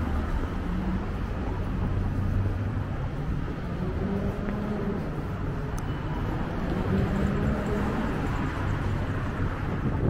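City street traffic: cars passing on a wide road, with steady tyre and engine noise and a low engine hum that swells and fades.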